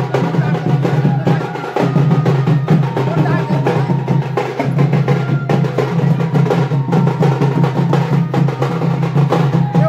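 Loud music driven by fast, dense drumming and percussion, with a melody line over it and crowd voices underneath.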